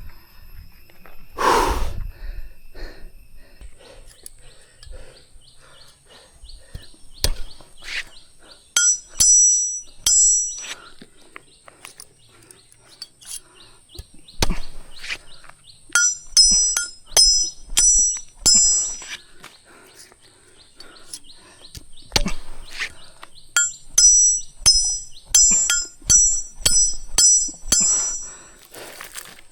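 Forest sounds: runs of quick, repeated high chirps from a bird come three times over a steady high thin insect-like tone, with scattered sharp knocks and clicks in between.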